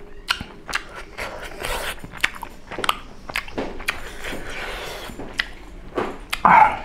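Close-miked mouth sounds of a person chewing soft, chewy tteokbokki rice cakes: a quick run of wet smacks and clicks, with one louder, longer burst near the end.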